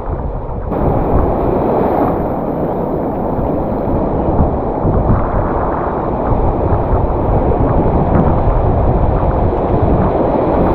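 Wind buffeting the microphone over the wash of surf. It gets louder about a second in and then stays steady.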